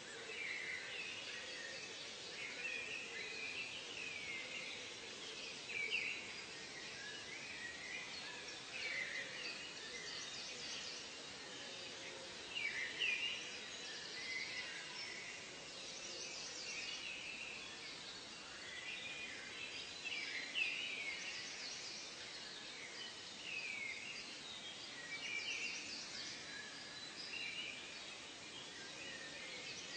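Forest ambience: many birds calling at once over a steady background hiss, short whistled calls overlapping without pause, many sliding up or down in pitch, mixed with higher, brief trills. A few calls stand out louder now and then.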